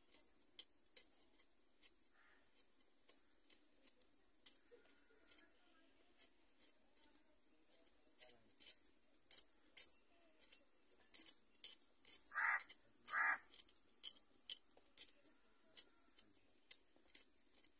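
A run of light clicks and scrapes from a small knife working vegetables by hand. About twelve and thirteen seconds in come two louder, short, harsh sounds.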